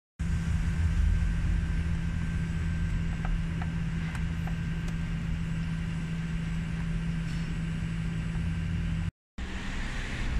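Car engine idling: a steady low hum with a constant tone, with a few faint clicks about three to four seconds in. The sound drops out for a moment near the end.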